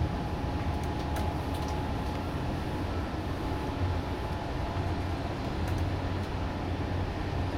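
Train of double-deck coaches hauled by a DB class 218 diesel locomotive running steadily: a continuous low rumble with a faint steady tone above it and a few light clicks.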